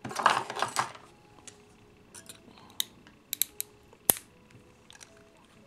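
Close handling of a battery cell and a spot-welded nickel strip: a brief scraping rustle, then scattered sharp metallic clicks of needle-nose pliers on the strip, the loudest about four seconds in.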